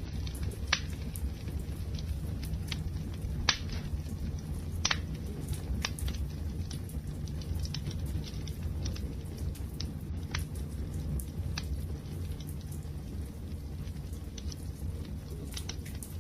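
Wood fire crackling: sharp pops and snaps at irregular intervals, about one every second or so, over a steady low rumble of burning.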